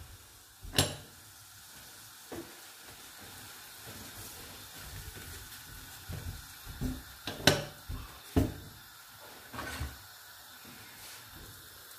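Potato frittata frying on a low gas flame under a glass lid: a faint, steady sizzle. A sharp click about a second in, and a run of knocks and taps from handling around the hob in the second half.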